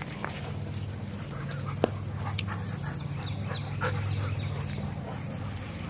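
Dogs at play close by: panting and a few short high sounds, with one sharp click a little under two seconds in, over a steady low hum.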